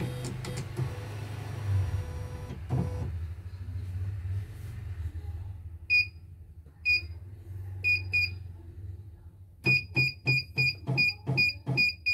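Key beeps from the control panel of a CNY portable embroidery machine: four single beeps about a second apart, then a quick run of about nine beeps near the end, each with a soft button click. A low machine hum underneath is loudest in the first three seconds.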